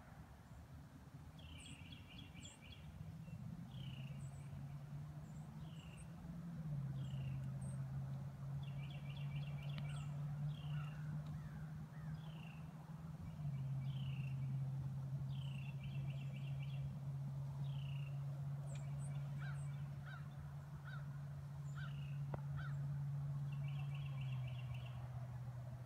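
Songbirds calling over and over, short falling whistles and quick trills, over a steady low hum that drops in pitch a few times.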